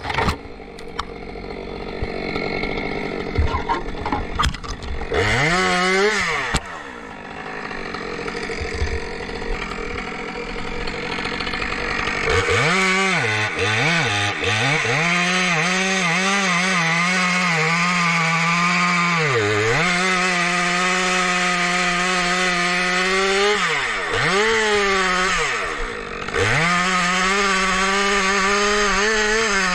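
Two-stroke chainsaw engine run at high revs, its pitch dropping and climbing back several times as the throttle is let off and opened again.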